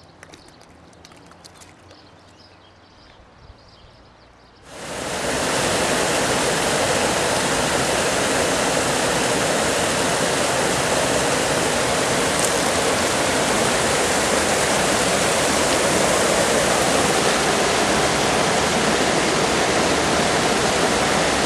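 River water pouring over a weir: a steady, loud rush of white water that starts suddenly about five seconds in, after a few faint seconds.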